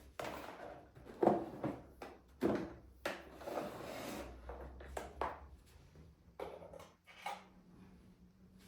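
Household objects being handled: a run of irregular knocks, bumps and short scrapes, like things being moved and set down, with a faint steady hum starting about six seconds in.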